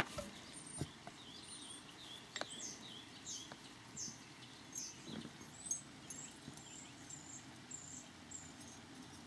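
Small songbirds chirping through a window, with many short, high down-slurred chirps and whistles throughout. A few sharp clicks of small steel firearm parts being handled: a loud one at the very start, then two lighter ones within the first few seconds.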